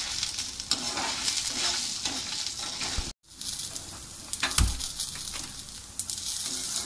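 Green and dried red chillies with coriander seeds sizzling as they fry in a little oil in a black iron kadai, with a slotted steel spatula scraping and clicking against the pan as they are stirred. The sound cuts out briefly about three seconds in, and a dull knock comes about a second and a half later.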